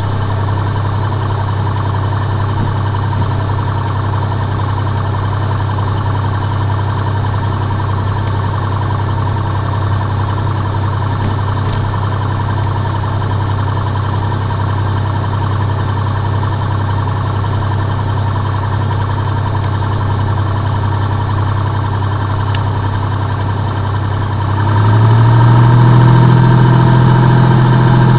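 A small plane's engine running steadily at low power. About 25 seconds in it is throttled up, getting louder and higher in pitch as power is applied for the takeoff.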